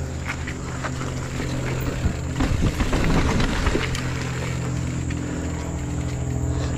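Specialized mountain bike riding along a dirt forest trail: tyres rolling over dirt, leaves and roots, with a louder, rougher rattling stretch about two to four seconds in as the bike crosses bumpy ground. A steady low buzz runs underneath.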